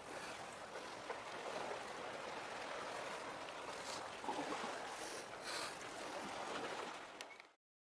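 Faint, steady outdoor wash of sea and wind at the harbour mouth, with a few faint knocks. It cuts off abruptly near the end.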